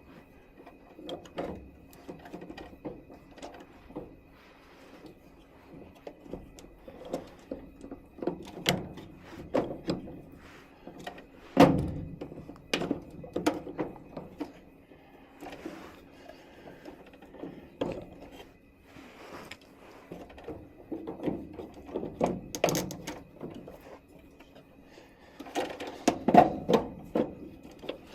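Irregular knocks and clattering from hands working a furnace's plastic condensate trap and its fittings loose, the loudest knock about twelve seconds in.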